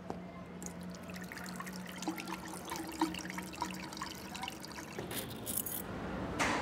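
Shower water splashing and dripping over a steady low hum. Near the end a key clicks in the ignition and a Hyundai Accent's 1.6-litre engine starts.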